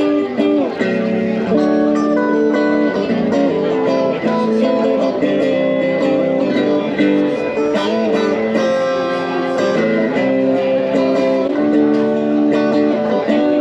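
Guitar music: sustained plucked and strummed notes and chords, some bending in pitch, playing continuously.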